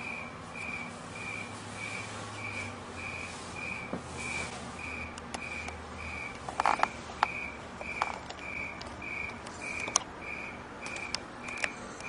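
Handling noise from a handheld camera being moved about: rubbing, with scattered sharp clicks and knocks, the loudest a little past halfway. Under it a faint high chirp repeats evenly about twice a second.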